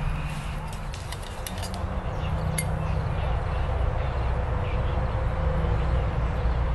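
Wood campfire burning, with a few scattered crackles and snaps over a steady low rumble.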